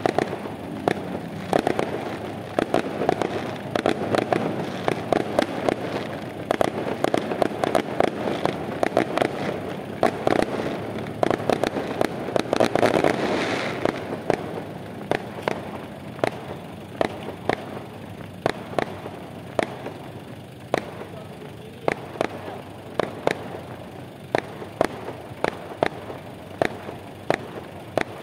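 Fireworks going off: a rapid, continuous string of sharp pops over a crackling haze that is densest about halfway through, then thins to separate pops a couple of times a second for the rest.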